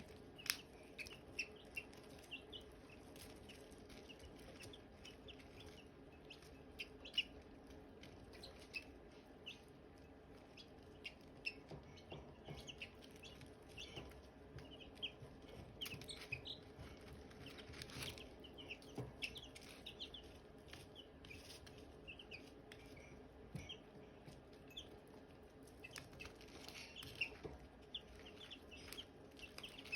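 Silkie chicks peeping: many short, high chirps throughout, over a steady low hum, with a few sharp clicks.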